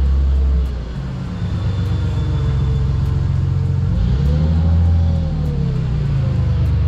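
Forklift engine running with a low, steady drone. It revs up and down about four to five seconds in as the forklift drives a pallet up to the back of the van.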